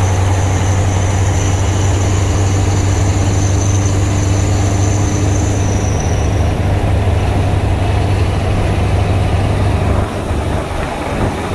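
Scania 143 420 V8 truck engine pulling up a hill, heard from inside the cab as a steady deep drone. The sound drops briefly about ten seconds in, then picks up again.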